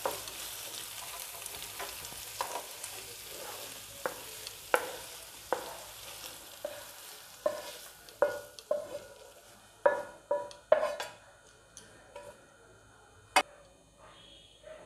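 A spatula scrapes and knocks against a nonstick frying pan as fried chicken filling is scooped out onto a plate. A faint sizzle from the hot pan thins away over the first several seconds. The strokes come about once a second, with a few louder knocks around ten seconds in and one sharp click a little later.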